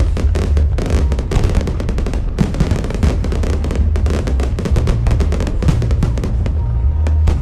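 Fireworks bursting and crackling in quick succession, over music with a heavy bass beat.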